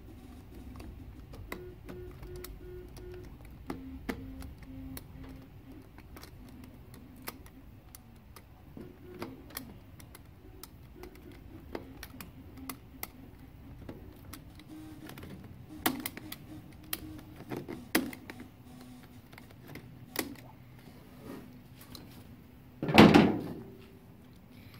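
Utility razor knife cutting and prying at the metal cell tabs of a Chevy Volt battery module, giving irregular small clicks and scrapes of blade on metal. Near the end there is one loud clatter.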